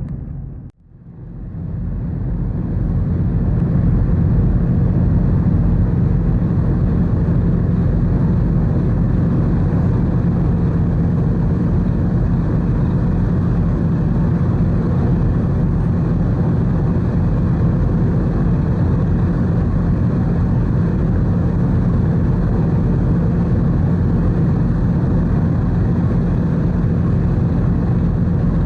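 Car ferry under way: a steady low rumble of the ship's engines and running noise, with a faint steady hum. The sound cuts out briefly about a second in, then fades back up.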